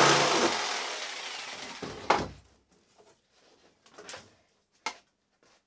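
Jigsaw finishing a cut through a plastic sheet, then switched off and winding down over about two seconds. A single sharp knock follows, then a few light clacks as the cut plastic plate is handled.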